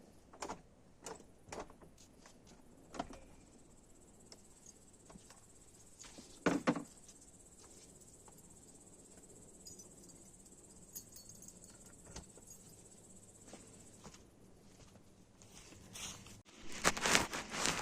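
Crickets trilling steadily and faintly, with a few scattered knocks and thuds, the loudest about six seconds in and a burst of louder handling noise near the end.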